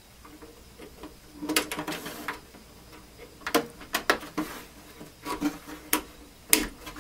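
Small plastic clicks and knocks as the fuse drawer is pushed back into the power inlet on the back of a Tektronix TDS 340 oscilloscope and the case is handled. They come in short groups, with one sharp knock near the end the loudest.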